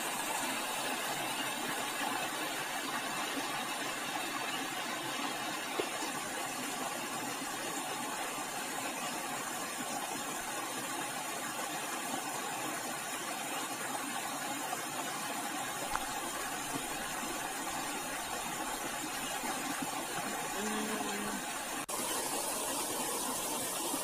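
Steady, even outdoor ambient hiss with no distinct events, changing slightly near the end.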